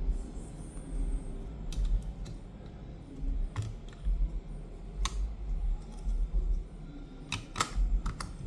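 Scattered sharp clicks and taps, about eight spread irregularly over several seconds, from small tools and parts being handled on an opened tablet during reassembly.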